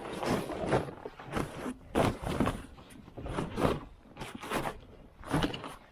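Fabric snowmobile cover rustling and scraping as it is dragged and tugged over the sled, with footsteps in snow. The sound comes as a series of short, irregular bursts.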